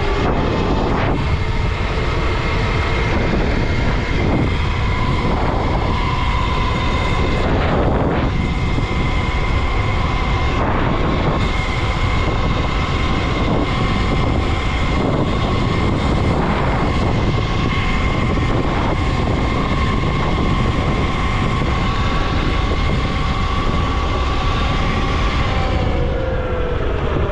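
Whine of a 72-volt Razor electric dirt bike's motor at full throttle, climbing in pitch as it speeds up at the start, holding a steady high whine, then dropping as it slows near the end. Heavy wind noise on the microphone underneath.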